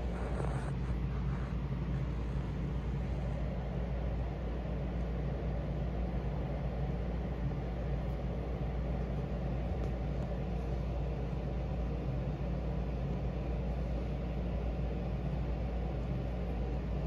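Domestic cat purring, a steady low rumble with a fast flutter.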